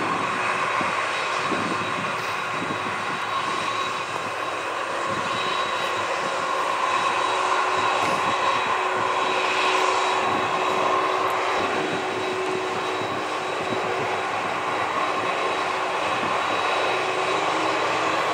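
Boeing 767 twin jet engines running steadily at low thrust, a continuous roar with a high steady whine, as the airliner sits lined up on the runway.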